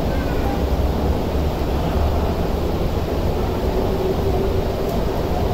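MTR Kwun Tong Line train running along the platform behind the platform screen doors: a steady low rumble, with a faint hum coming in over it near the end.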